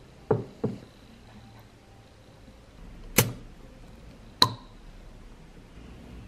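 Pull-ring crown cap being pulled off a glass Bundaberg brewed soft drink bottle: two soft knocks in the first second, then two sharp metallic clicks about a second and a half apart as the ring is lifted and the seal breaks. A faint hiss of escaping carbonation follows near the end.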